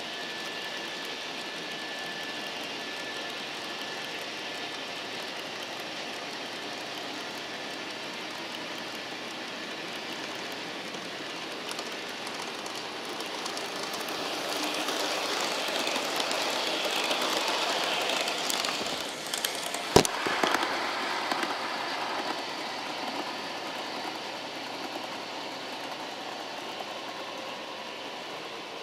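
Model trains running on the track: a steady electric-motor and wheel whirr that grows louder as a train passes close by in the middle, with one sharp click about two-thirds of the way through, then fades back.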